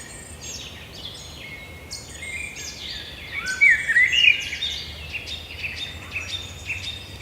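Forest bird chorus: many small birds chirping and trilling over one another. Sparse for the first couple of seconds, then busier and louder from about three and a half seconds in.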